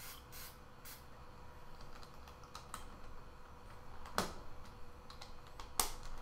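A couple of short hisses of aerosol silicone spray near the start, then scattered plastic clicks and clacks from the pieces of a Lan Lan 4x4 puzzle cube as its layers are turned to work the lubricant in. Two sharper clicks stand out, a little past the middle and near the end.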